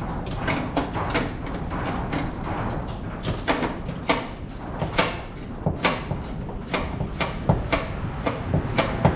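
Socket ratchet on an extension clicking in short strokes, about two or three clicks a second at uneven spacing, as the top engine-to-transmission bolt of a VW Beetle engine is backed out.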